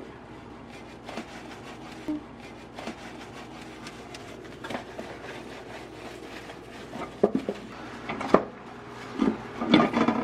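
A sponge rubbing and wiping the inside of a microwave oven, with scattered knocks and clatters, the loudest ones in the last few seconds.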